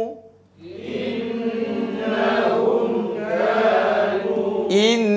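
A group of students reciting in unison, repeating the Quranic words 'innahum kanu' after their teacher as a chanted tajwid drill. Near the end one man's voice begins the next phrase.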